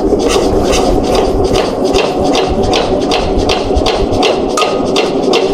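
Small tractor engine being turned over fast by its hand starting crank, a steady run of rapid knocks about four to five a second.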